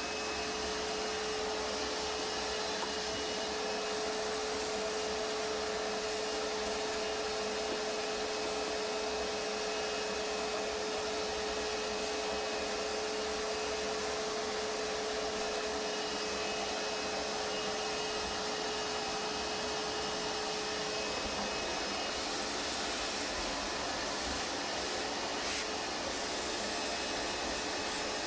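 A small motor running steadily, a constant whir with a steady hum that does not change.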